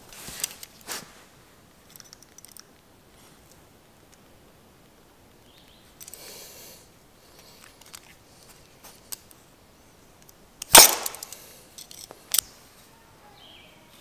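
A few sharp clicks and snaps, the loudest about eleven seconds in, as a utility knife cuts through a rubber garage door threshold strip on a concrete floor.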